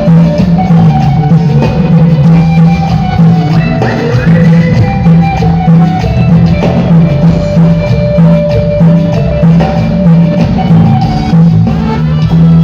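A band playing loud music: drum kit and percussion over a pulsing bass line, with sustained melodic tones above.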